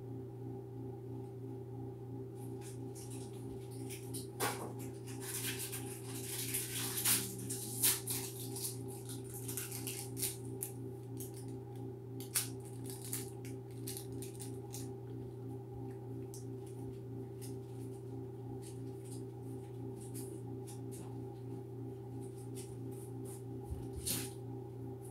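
A steady low hum with a few fainter higher tones held throughout. Scattered light clicks and rustles come over it, densest from about two to twelve seconds in, with one more cluster near the end.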